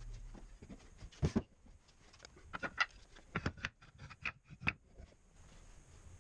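Wooden boards knocking and clacking as they are picked up and shifted on a workbench: a string of short, light knocks, the loudest about a second in.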